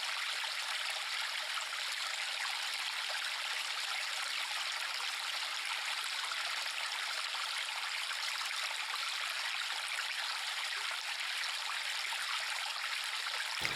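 River water flowing: a steady, even rush of water, mostly light hiss and babble with no deep rumble.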